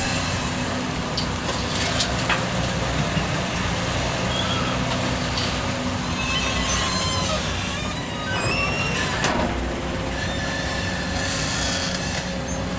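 JCB tracked excavator running under load, its diesel engine and hydraulics working steadily as the bucket dumps sand and gravel into a dump truck and the arm swings back. Short high squeaks and a few sharp knocks sound over the engine's drone.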